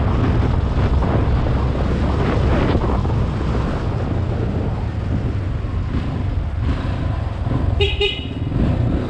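Motorcycle on the move: its engine running under heavy wind rumble on the microphone. About eight seconds in, a short horn toot.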